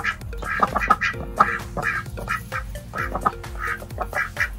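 Indian runner ducks quacking in a run of short calls, over background music.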